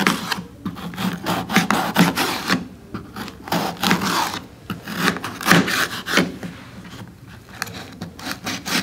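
Kitchen knife slicing a bell pepper on a plate: an irregular run of short scraping cuts with light knocks of the blade against the plate, quieter near the end.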